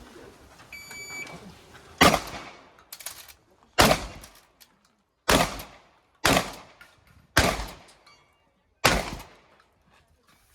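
Six shotgun shots over about seven seconds, each a sharp crack that dies away in an echoing tail. A short electronic beep sounds about a second in, before the first shot.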